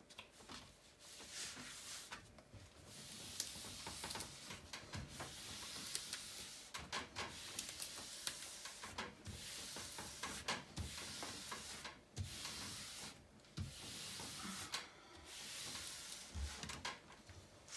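Hands rubbing and smoothing the protective cover film of a diamond-painting canvas flat on a table: a run of swishing strokes, each lasting a second or few, with small crinkles and a few light thumps.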